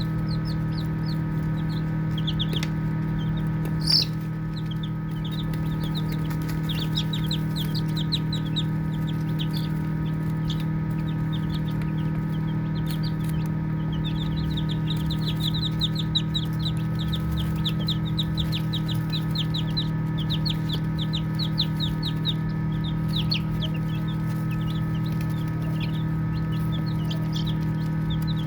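A group of baby chicks peeping, with fast runs of short, high, falling chirps and brief lulls between them, over a steady low hum. A single sharp click sounds about four seconds in.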